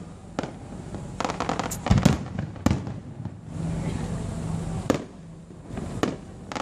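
Aerial fireworks bursting: a series of sharp bangs and crackles, with a quick flurry of reports between about one and two seconds in and single bangs after it.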